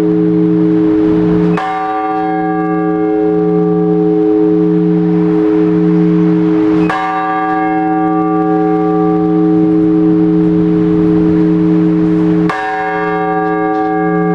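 Heavy Orthodox church bell tolled in the slow single-bell blagovest: three strokes about five and a half seconds apart, each ringing on until the next, with its low hum pulsing.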